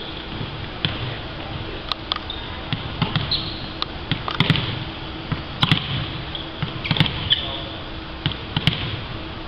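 Volleyballs being struck and bouncing on a wooden sports-hall floor: a string of sharp, separate thuds, some in quick pairs, in a large hall. Brief high squeaks, like sneakers on the court, come between the hits.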